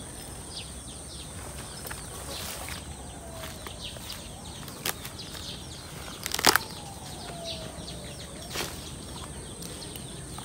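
Rural garden ambience: birds chirping repeatedly over a steady high-pitched hum, with a few slower falling calls. Several sharp knocks break in, the loudest a short clatter about six and a half seconds in.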